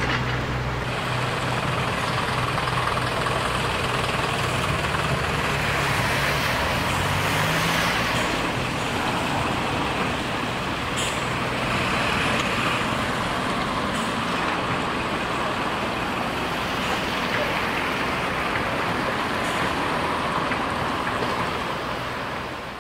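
Diesel engine of a demolition excavator running under load, rising in pitch briefly about seven seconds in, over a steady rushing noise, with a few sharp knocks as the building is broken up.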